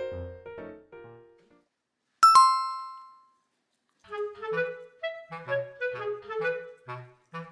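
Background music: one tune fades out, a single bright chime rings about two seconds in and dies away, and after a short gap a new light tune with a clarinet-like melody over short bass notes begins about four seconds in.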